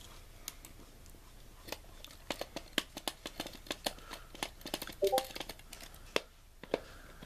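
Irregular small plastic clicks and taps as hands flip and work open a VHS cassette's plastic shell. A brief pitched sound about five seconds in is the loudest moment.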